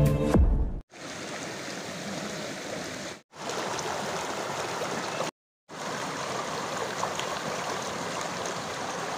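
Shallow river rapids: fast water rushing steadily over boulders. The sound is cut off twice by brief silent gaps, and the last of a music sting ends within the first second.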